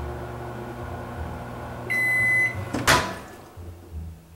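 GE over-the-range microwave oven running with a steady hum. About two seconds in it gives one long end-of-cycle beep, the hum stops, and the door release pops the door open with a sharp clack.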